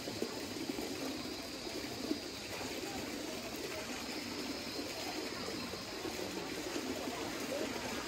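Steady running water of a hot spring's small cascades and pools.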